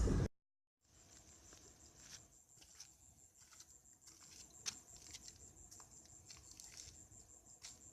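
Faint night ambience: crickets trilling in one steady, high, finely pulsing tone, with scattered soft clicks and ticks. It begins after about half a second of dead silence.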